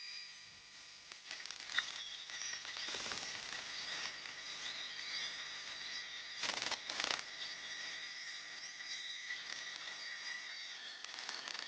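Faint workshop sounds of an engine being taken apart: a sharp click about two seconds in and a short clatter of metal parts around the middle, over a faint steady high whine.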